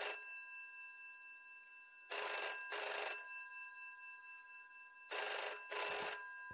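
Rotary desk telephone ringing in double rings: two short rings about half a second apart, the pair coming about every three seconds, with the bell ringing on faintly between pairs.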